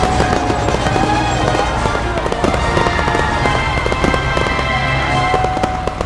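Animation soundtrack: music with a dense, rapid crackle of clicks and pops over it.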